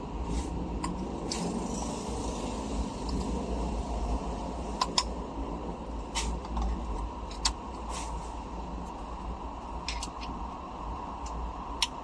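Hand tools and small metal parts clicking and clinking now and then, about a dozen sharp ticks over a steady low hum.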